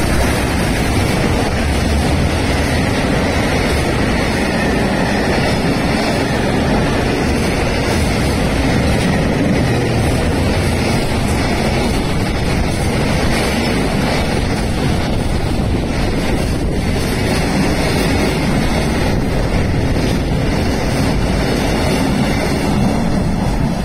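EF210 electric freight locomotive and its long train of container wagons passing through a station without stopping: a loud, steady rumble of wheels on rails that drops away near the end as the last wagons go by.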